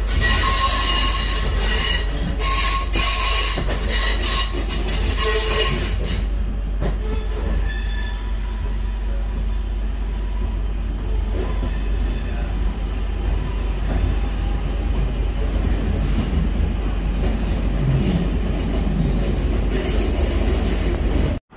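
Passenger train running on the rails, heard from inside the carriage: its wheels squeal in high, ringing tones that come and go for the first six seconds, then the steady low rumble of the running train carries on.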